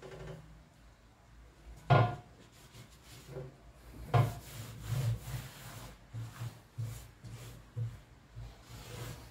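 A cloth scrubbing a diamond-plate steel skid plate in repeated strokes, wiping off rust loosened by a vinegar soak, with two sharp knocks about two and four seconds in.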